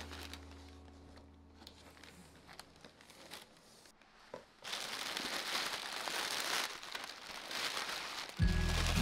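Packaging crinkling and rustling as purchased goods are unwrapped, starting about halfway through after a few light handling clicks. Background music fades out at the start and comes back in loudly near the end.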